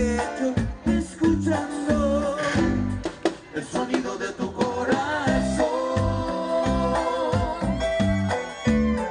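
Live band music: a Latin dance song with guitar over a pulsing bass line, with singing.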